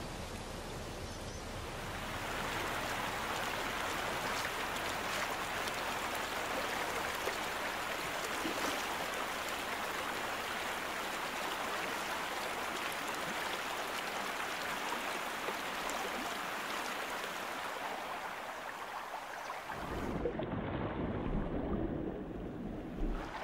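Steady rushing of a rocky river's flowing water. About 20 seconds in it turns muffled and deeper, the water heard from underwater.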